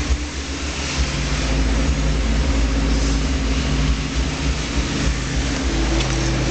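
Off-road vehicle's engine running steadily under load while driving, with a deep rumble and constant wind and tyre noise, heard from inside the cab.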